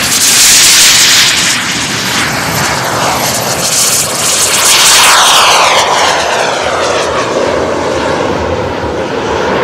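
Model turbine jets (Paritech Natrix) taking off, with a loud rushing jet-turbine whine. It swells twice as the jets pass close on their take-off runs, the second time dropping in pitch as it goes by, then settles to a steadier, lower level as they climb away.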